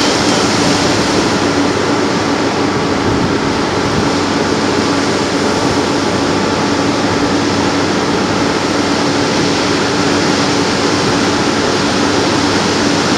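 Surf breaking and washing in steadily, with a steady low hum running under it that stops near the end.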